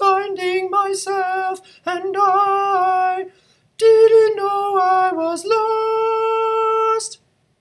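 A man singing alone, unaccompanied, in a high voice: the high part of a choir arrangement. A short break about halfway, then one long held note that stops shortly before the end.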